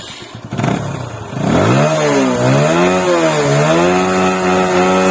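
TVS Apache motorcycle's single-cylinder engine catching about a second and a half in, revved up twice, then held at a steady speed.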